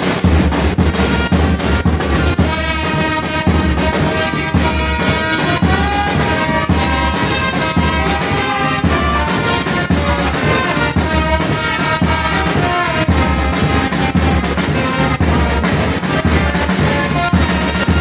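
Brass band playing live: a steady drum beat, with trumpets and trombones coming in about two and a half seconds in and carrying the tune.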